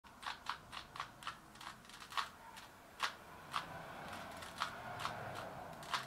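Rubik's Cube being twisted by hand, its plastic layers clicking as they turn: quick clicks about four a second at first, then more spaced out.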